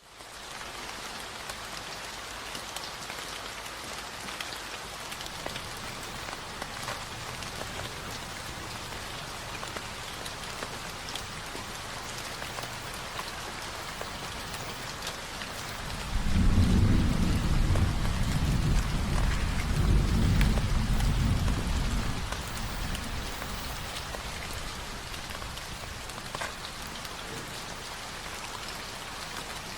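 Recorded rain falling steadily, with scattered drop ticks. About halfway through, a low rumble of thunder rolls in and lasts several seconds before fading back to the rain.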